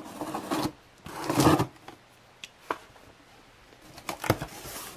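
A folding knife blade slitting packing tape along the seam of a cardboard box in scraping strokes, the second and loudest about a second in, with a few light ticks. Near the end the cardboard flaps are pried and pulled open with a scrape and a sharp click.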